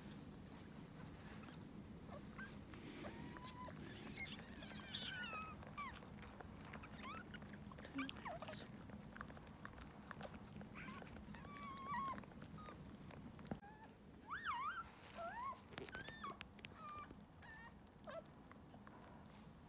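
Newborn toy poodle puppy squeaking: short, thin, high cries that rise and fall, scattered throughout and coming thickest about two-thirds of the way through.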